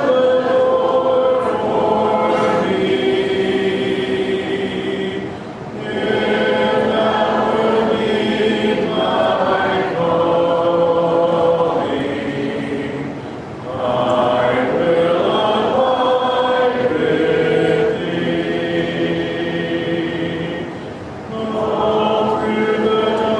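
Church congregation singing a hymn together, unaccompanied, in long held phrases with short breaks between them: the invitation song at the close of the sermon.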